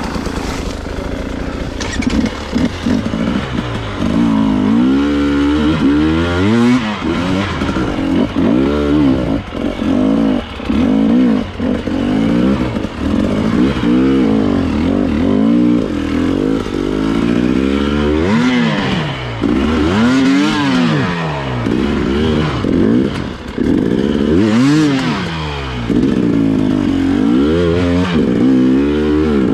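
Husqvarna TE 300 two-stroke enduro motorcycle engine revving hard and dropping back over and over, the throttle opened and closed in surges every second or two.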